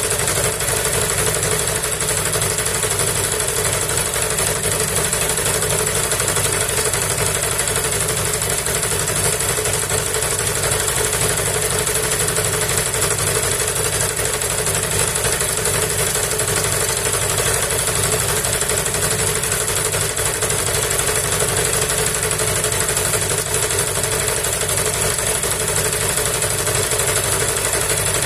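Homemade generator running steadily under load: a small petrol engine turning an induction motor used as the generator, powering a 1 kW heater and a 100 W lamp.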